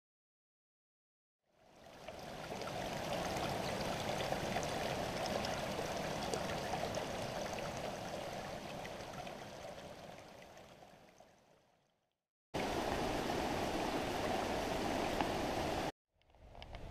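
Mountain stream flowing, a steady rush of water that fades in, then fades out. After a short silence it cuts back in abruptly for a few seconds and stops suddenly.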